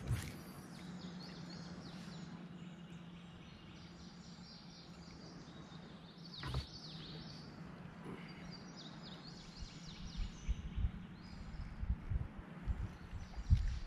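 Birds chirping and singing in a quiet outdoor background, over a faint steady low hum, with a sharp click partway through and a few soft low knocks near the end.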